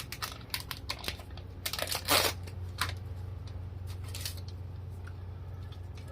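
Packaging crinkling and tearing in a run of short crackles, the loudest about two seconds in: an oxidation remover wipe's packet being torn open. A steady low hum runs underneath.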